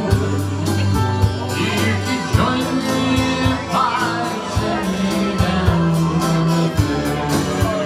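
A small country band playing live: guitars and keyboard over a steady drum beat, with singing.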